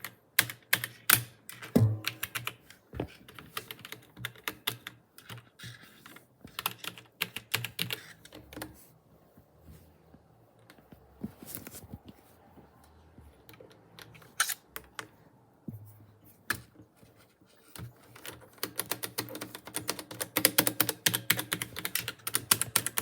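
Computer keyboard being typed on: bursts of sharp keystroke clicks, sparse through the middle, then fast, continuous typing for the last few seconds.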